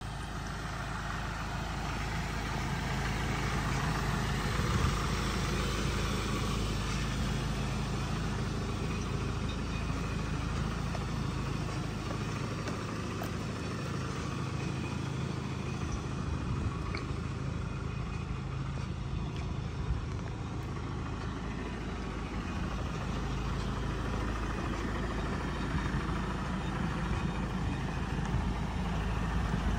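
Land Rover Defender 110's diesel engine idling steadily.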